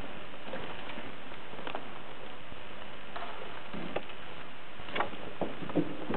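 Steady background hiss with a few faint, scattered clicks and small knocks.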